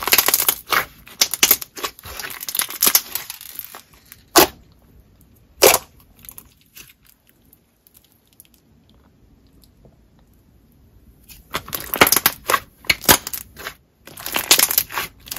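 Softened clear slime with foam and plastic beads squeezed and stretched by hand, giving quick runs of small bubble pops. About four seconds in, the runs give way to two single pops, then several seconds of near quiet before the popping starts again near the end.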